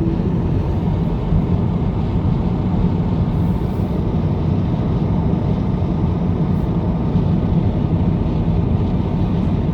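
Steady road and wind noise inside the cabin of a 2022 Tesla Model 3 Performance at speed, with the car's window wind-noise fault audible in it.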